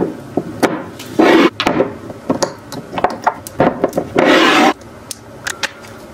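Close-up handling of glass skincare dropper bottles and caps: a string of light clicks and taps, with two longer, louder rubbing sounds, about a second in and again past four seconds.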